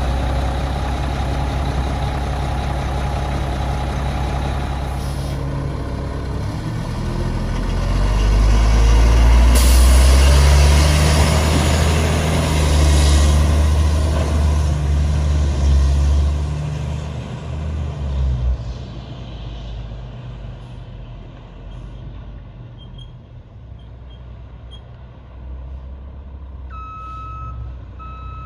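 A 2005 Mack MR688S garbage truck's Mack AI diesel engine idles steadily, then pulls away and revs up, with a hiss of air about ten seconds in. The engine sound fades as the truck drives off, and near the end a reversing alarm beeps faintly in the distance.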